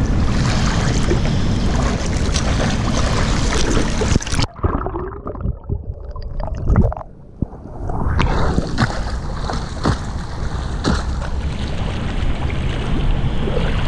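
A swimmer doing front crawl in a pool: steady splashing of arm strokes and kicks. About four and a half seconds in the sound turns muffled, heard from under the water with bubbles and a few knocks. The splashing comes back about eight seconds in.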